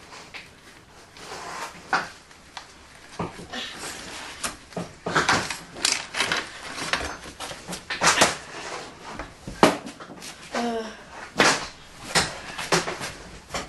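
Irregular knocks, clicks and metallic clatter of a dirt bike's rear wheel, axle and chain being handled as the wheel is taken out of the swingarm.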